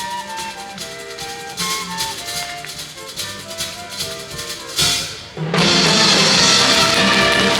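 School wind band playing a Eurobeat-style arrangement, a melody over a steady drum-kit beat. About five seconds in, a sharp crash and a brief drop, then the full band comes in much louder.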